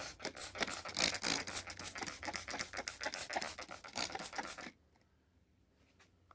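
Rapid, irregular scratching and rubbing, like hands working over a rubber tire, for about four and a half seconds, then it stops.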